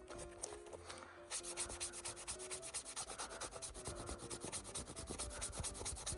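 Quick, even rubbing strokes on the dry leather pocket of a first baseman's mitt, about eight a second, starting about a second in: conditioner being worked into leather that has gone dry.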